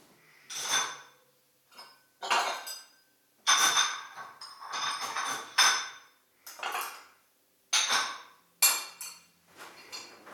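Irregular metallic clinks and knocks, about a dozen over the stretch, each with a brief ringing tail, a few running together in quick clusters.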